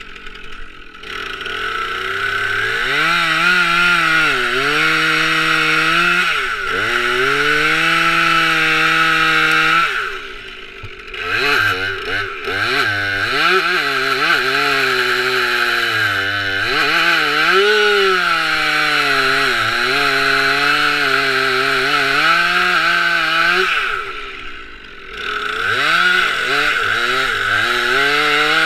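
Stihl 362 C-M two-stroke chainsaw at full throttle cutting wood, its pitch sagging and recovering as the chain bites. It revs up about two seconds in, and the engine drops back briefly about ten seconds in and again near the end before revving up again.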